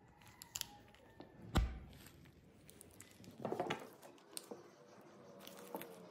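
Small clicks and taps of plastic model-car wheels and a thin metal axle rod being handled and fitted together, with one sharper knock about a second and a half in and a brief run of quick clicky scraping near the middle.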